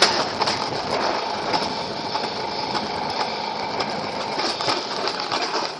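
Alpine coaster sled's wheels running fast along the steel tube rails: a steady rolling rattle with a faint whine under it and scattered sharp clicks.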